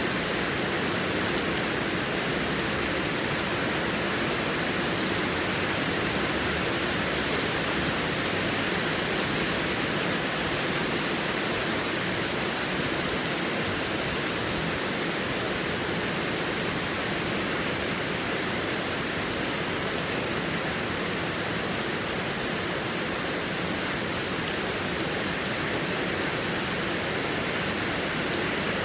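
Heavy rain falling, a steady, dense hiss with no breaks or individual drops standing out.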